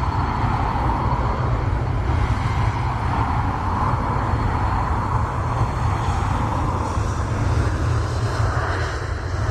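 Jet engines of a Boeing 737-800 (CFM56-7B turbofans) running loud and steady: a broad roar centred in the middle range that slowly shifts in pitch, over a deep rumble.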